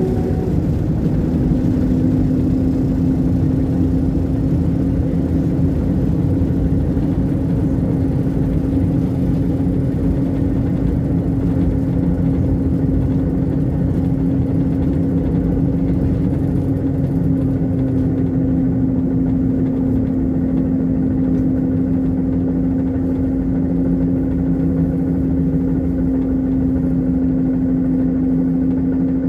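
Cabin of a ZiU-682G trolleybus on the move: a steady electric whine over a low rumble of the ride.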